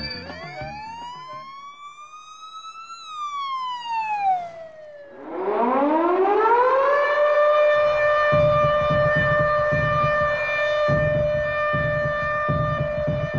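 A siren winding up over about three seconds, sliding back down, then winding up again and holding one steady tone. A low rumble comes and goes under the held tone from about eight seconds in.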